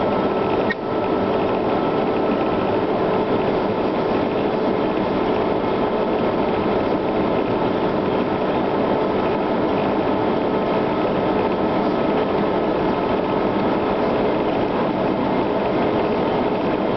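Humvee running at road speed, heard from inside the cabin: a steady mix of diesel engine, drivetrain and tyre noise with a steady whine running through it.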